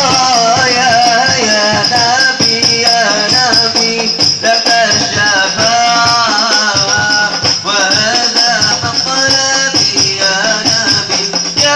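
Hadrah banjari music: a man sings a wavering, ornamented devotional melody over a steady rhythm of rebana frame drums.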